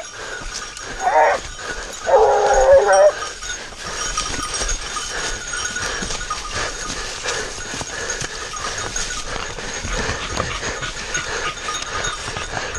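Hunting dog baying: a short call about a second in, then a longer held one around two seconds in. After that, rustling and shuffling through dry leaves.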